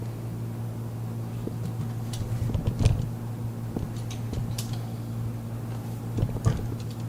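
A steady low mechanical hum, with a few short, soft rustles and taps about 3 s, 4.5 s and 6.5 s in.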